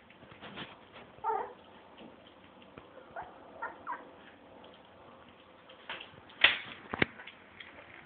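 Three-week-old puppy giving a few short high squeaks and whimpers, one clear squeak followed by smaller ones. Near the end come two sharp knocks about half a second apart, louder than the squeaks.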